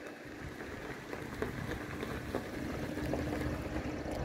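Engine of a CP Rail Brandt road-rail truck running with a steady hum, growing louder, with a few brief knocks.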